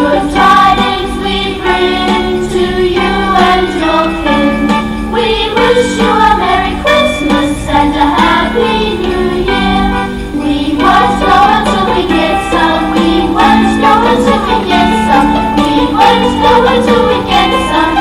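Intro music with singing and a steady beat, with a jingling percussion part.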